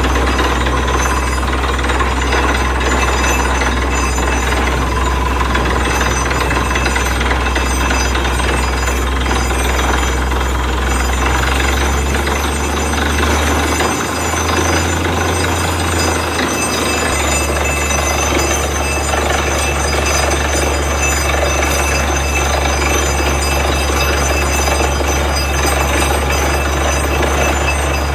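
Tractor-mounted borewell drilling rig running hard: a steady, loud, pounding drilling noise over a low engine drone, while air blows water and rock slurry up out of the bore against a sack. The drone's pitch shifts briefly about halfway through.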